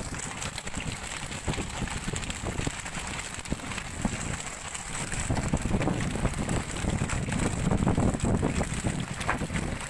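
Wind buffeting the microphone on a tuna fishing boat under way at sea, with a low rumble and scattered short knocks and slaps. It grows louder about halfway through.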